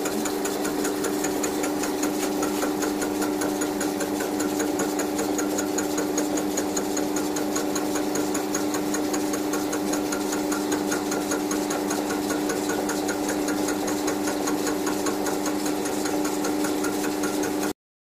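Milling machine running steadily while a form cutter machines the teeth of a rotary table's worm wheel held in a dividing head. The sound cuts off abruptly just before the end.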